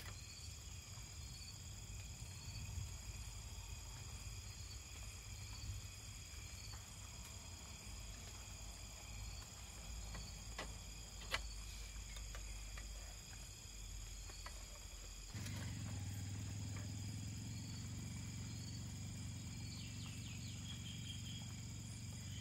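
Night insect chorus of crickets: several steady high-pitched trills, with a faint short chirp repeating about once a second. A low rumble underneath gets louder about fifteen seconds in, and there are a few sharp clicks.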